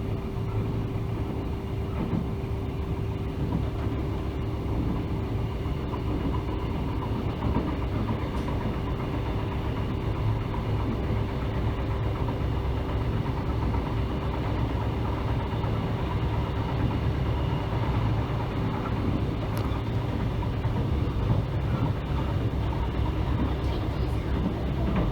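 Mugunghwa-ho passenger train running: a steady low rumble with a steady hum.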